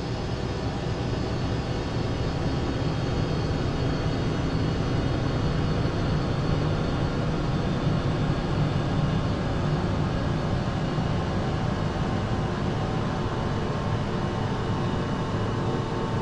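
A steady low droning rumble with faint held high tones over it, swelling a little in the first few seconds and then holding: a dark ambient drone of the kind used in horror sound design.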